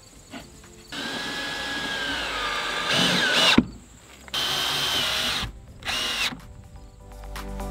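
Power drill driving screws in three runs: a long one of about two and a half seconds whose whine drops in pitch partway and ends with a click, then a shorter run and a brief burst. Background music fades in near the end.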